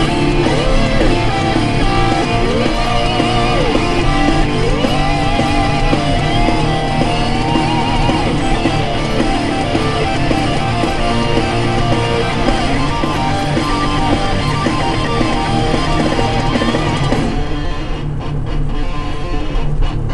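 Rock music led by electric guitar, its notes bending up and down over a steady backing.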